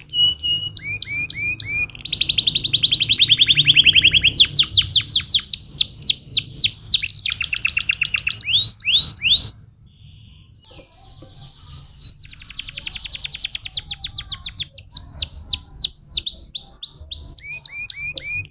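Domestic canary singing a long song of rapid trills, each a fast run of repeated down-slurred whistled notes, changing speed from one trill to the next. The song stops for about a second and a half a little past halfway, then starts again.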